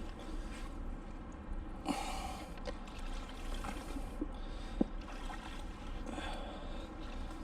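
Breathing and handling noises as scrap metal is pulled off a neodymium fishing magnet, with a few sharp metal clicks, the clearest about five seconds in.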